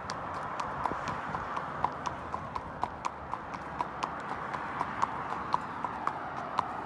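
Connemara pony's hooves clip-clopping on a tarmac road: a steady run of sharp hoofbeats as she is ridden along.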